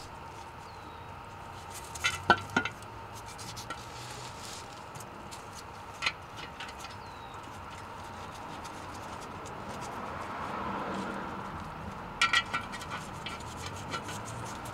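Light metallic clicks and taps from the steel rear differential cover being handled: a quick cluster about two seconds in, a single tap near six seconds, and another cluster about twelve seconds in, over a steady low hum.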